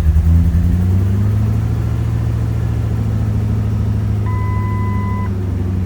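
Ford F-250 engine idling unevenly, a misfire after the spark plugs were re-gapped; its speed rises a little in the first second, then it settles into a steadier idle. A short electronic beep sounds about four seconds in.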